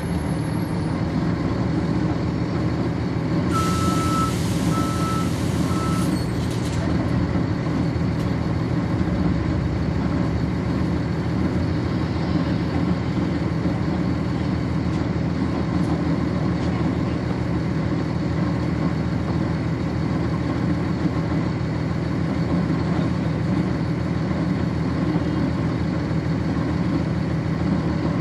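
A 1999 NovaBus RTS bus's Cummins ISC inline-six diesel idling steadily, heard from on board. About three and a half seconds in, a hiss of air runs for about three seconds, with three short beeps over it.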